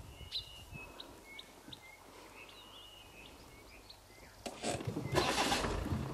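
Oxpeckers giving short, scattered chirps and brief whistled calls. About four and a half seconds in, a louder rustling rush of noise takes over for a second and a half.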